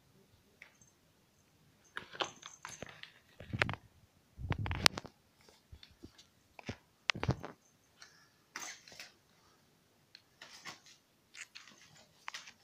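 Irregular knocks, clicks and scrapes of a cat's clear plastic cone collar bumping and rubbing against a tiled floor and wall, with a few dull thumps, the loudest about four and a half seconds in.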